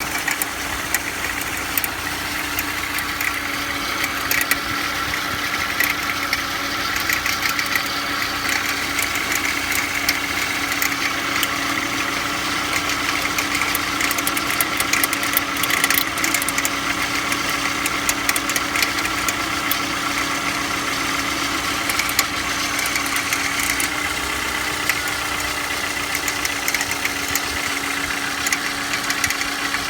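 Škoda Octavia engine idling cold: a steady running hum with a higher whine over it and fine, rapid irregular ticking throughout. The ticking and whine are the extraneous engine noise that shows up when the engine is cold.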